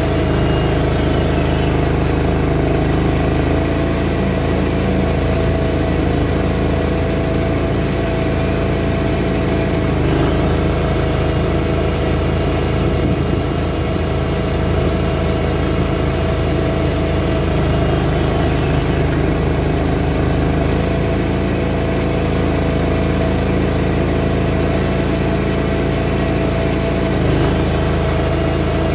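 Greens mower engine running steadily while cutting, its pitch dipping slightly about three times.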